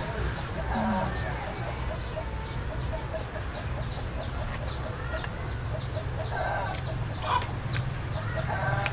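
Chickens clucking a few times, about a second in and again near the end, over a steady run of short high chirps about three a second and a low rumble.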